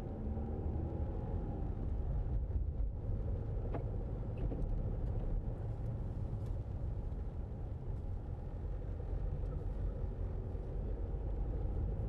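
Steady low engine and tyre rumble of a Land Rover Freelander 2 heard from inside the cabin as the car picks up speed to around 25 mph.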